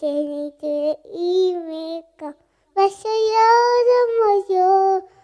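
A young female voice singing a devotional song solo and unaccompanied: phrases of held notes with vibrato, broken by short pauses, the longest phrase coming about halfway through.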